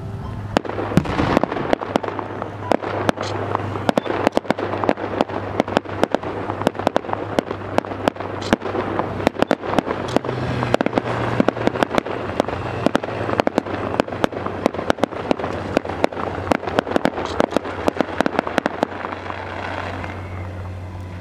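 Fireworks display: aerial shells bursting in a dense, rapid run of bangs and crackles, many reports a second, thinning out near the end.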